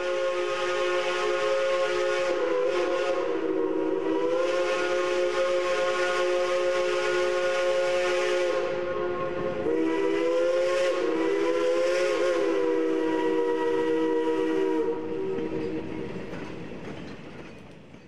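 Steam locomotive chime whistle blowing one long chord with a hiss of steam. It wavers in pitch a few times and fades out near the end.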